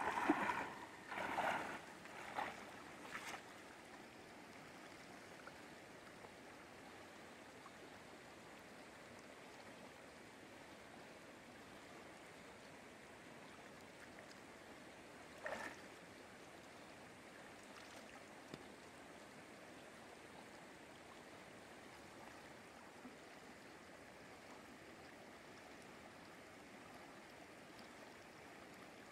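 Shallow river current running steadily. In the first three seconds, a few splashes as a cast net is thrown and lands on the water, and one brief splash about halfway through.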